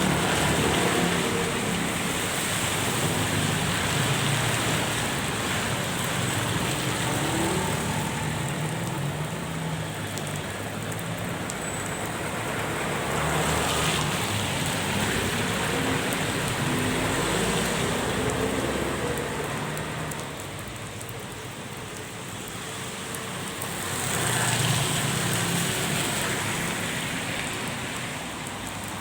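Rain falling, with motor vehicles passing on a wet road; the traffic noise swells and fades several times.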